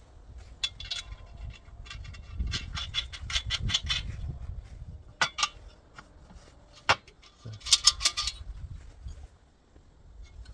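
Steel washer, nut and spanners clinking and clanking on a bolt as the nut is threaded on and the spanners are fitted to tighten it. Several clusters of small metallic clicks and taps, with a few single sharp clinks and a dense burst near the end, over a low rumble.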